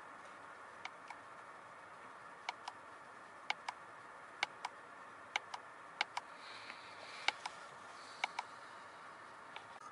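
Steering-wheel multifunction buttons of a 2017 Volkswagen Golf clicking as they scroll through the instrument-cluster menus. The clicks come in pairs, a press and a release, roughly once a second, over a steady faint cabin background.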